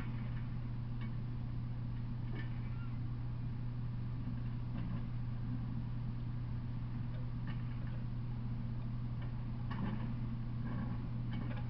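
A steady low hum with a few faint, irregular ticks; no train is passing.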